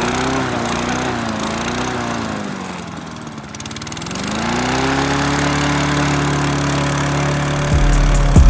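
Toro lawn mower engine running just after its first start of the season, its speed wavering, sagging about three seconds in, then picking back up and holding steady.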